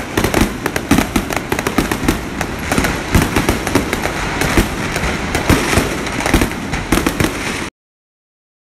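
A fireworks stall's stock of hundreds of fireworks accidentally set off all at once: a rapid, continuous barrage of bangs and crackles, which stops abruptly near the end.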